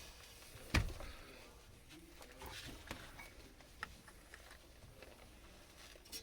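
Scattered light knocks and clicks from handling copper refrigerant tubing, the loudest a sharp knock just under a second in.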